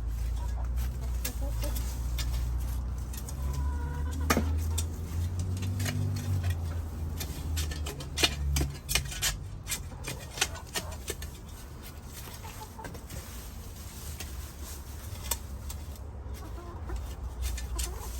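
Backyard hens clucking, with scattered small clicks and knocks throughout.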